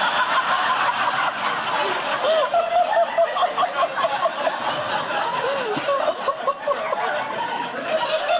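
Studio audience laughing, many voices at once, loud and sustained without a break.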